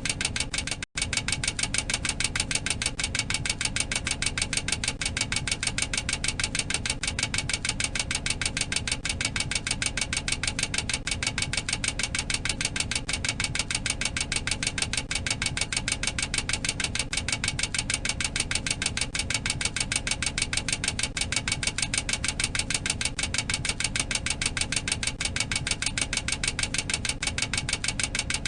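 Boeing 737-800 cockpit overspeed warning clacker sounding continuously, a rapid, even clacking. It signals that the airspeed limit has been exceeded. There is a very brief break about a second in.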